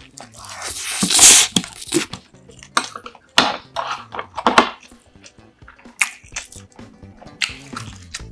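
Close-miked eating: a spoonful taken into the mouth with a loud slurp about a second in, then chewing with wet clicks and smacks. Quiet background music plays underneath.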